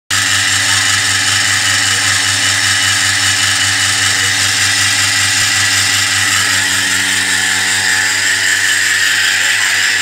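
Milking machine's vacuum pump running, a steady hum with an even hiss.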